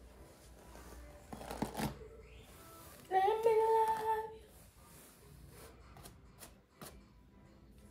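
A woman's voice holding one sung note for about a second, the loudest sound here, amid soft rustling and a few light clicks of hands working through long hair.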